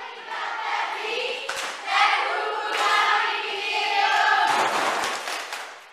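A group of girls and women singing together in unison. Near the end the singing gives way to a noisier stretch and fades out.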